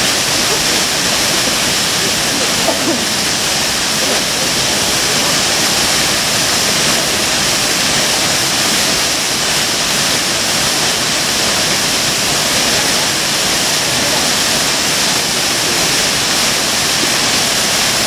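Minoo Falls, a tall waterfall plunging into a rock pool: a steady, loud rush of falling water.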